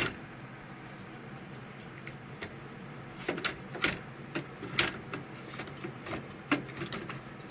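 A few light clicks and knocks at uneven intervals, starting about three seconds in, as the repaired power board is handled and set back into the Sony Bravia TV.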